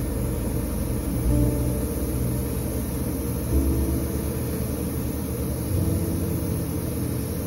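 Steady mechanical rumble with a low hum and hiss, like a small motor running, swelling slightly about every two seconds.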